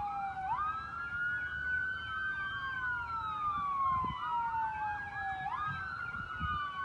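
Emergency vehicle sirens of an approaching fire truck wailing in slow rising and falling sweeps, with a second siren sweeping faster over them.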